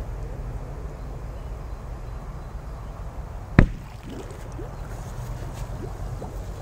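A firecracker going off under the water of a bog pool: a single sharp bang about three and a half seconds in.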